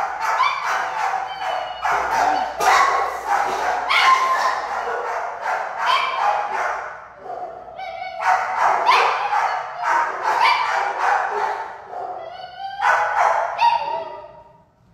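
Shelter dogs barking over and over in their kennels, with a short lull about seven seconds in and dying down near the end.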